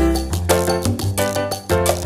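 Background music: a lively Latin dance-style track with bass notes and regular percussion hits.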